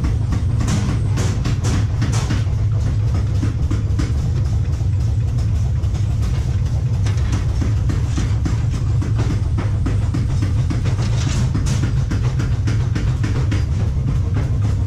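A steady, loud low rumble with a dense, irregular clatter running through it, like machinery running with rattling metal.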